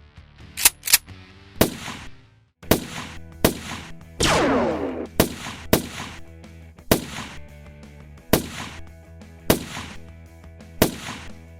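About a dozen sharp blaster shots, single and in quick pairs, spaced roughly a second apart over electronic background music; about four seconds in, one longer shot carries a falling tone.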